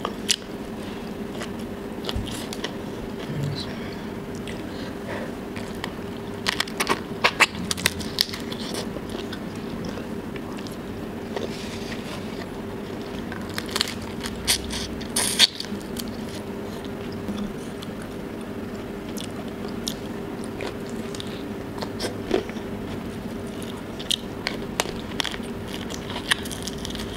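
Close-miked eating by hand: biting into and chewing spicy tiger prawns, green beans and rice, with sharp crunches, the loudest clusters about seven seconds in and again around fifteen seconds. A steady low hum runs underneath.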